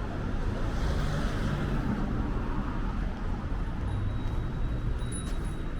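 Street ambience dominated by road traffic: a steady low rumble of passing vehicles, with a faint high-pitched tone joining about four seconds in.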